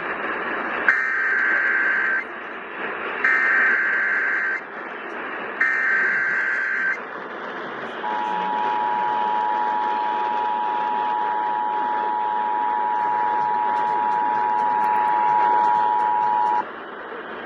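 Emergency Alert System required monthly test signal received on AM radio: three bursts of the SAME digital header, each about a second long, then the two-tone attention signal (853 and 960 Hz) held steady for about eight and a half seconds. Background hiss of AM reception runs under it.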